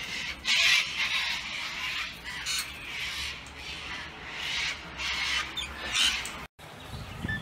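A flock of galahs (pink-and-grey cockatoos) giving repeated harsh, screeching calls, the loudest about half a second in. The sound cuts out abruptly for a moment near the end.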